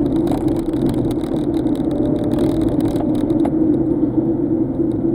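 Steady engine and road noise of a car being driven, heard from inside the cabin.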